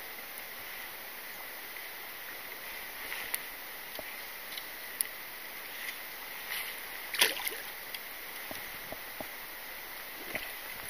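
A trout splashing at the surface in shallow water, one sharp splash about seven seconds in with a few fainter splashes and ticks before and after, over a steady hiss of flowing water.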